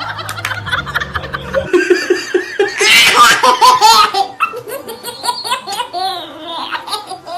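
People laughing hard in repeated bursts, loudest about three to four seconds in.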